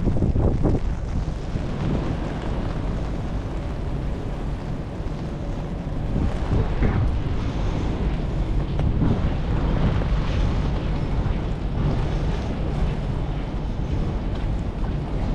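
Wind buffeting the microphone of a GoPro action camera: a steady rush of noise, heaviest in the low end.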